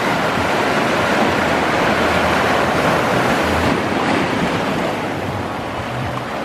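Sea waves crashing and washing over rocks: a steady rushing surf that builds over the first few seconds and eases off after about four seconds.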